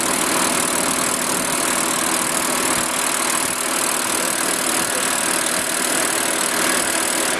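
2002 Mazda Protege5 heater/AC blower fan running steadily over the idling engine, heard in the cabin; it switches off at the very end, and the high hiss and some of the held tones drop away. The owner's complaint is a clicking from this fan that stops when the fan is turned off.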